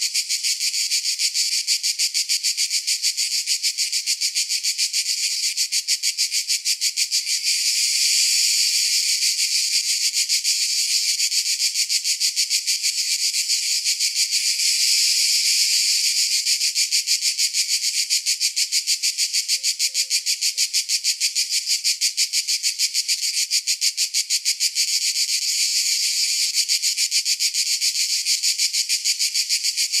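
Cicadas buzzing as one continuous high, rapidly pulsing chorus that holds steady and swells slightly now and then.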